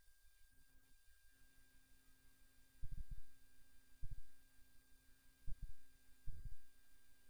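Faint steady electronic tone over a low hum, with four short dull low thumps spread through it.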